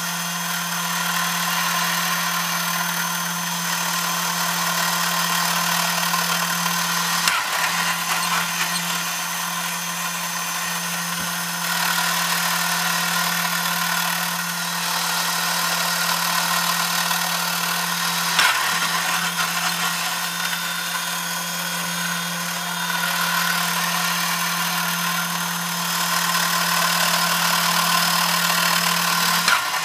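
Small electric motor and gear train of a battery-operated tin toy whirring steadily as it runs through its motions, with the level swelling and easing as the actions change and a few sharp clicks along the way.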